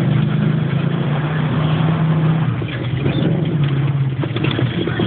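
Land Rover Discovery's V8 engine running steadily at low revs, heard from inside the cabin, with short knocks and rattles from about three seconds in as the vehicle goes over rough ground.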